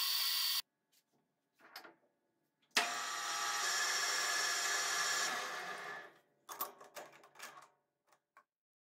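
Metal lathe cutting a spinning metal rod with a carbide tool: a steady hiss of the cut that stops abruptly under a second in. After a short gap a second cut starts sharply near three seconds and fades out around six seconds, followed by a few light metallic clicks and clinks.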